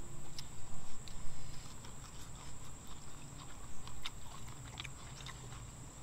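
People eating with their hands: chewing, with scattered small clicks and taps from fingers and metal bowls.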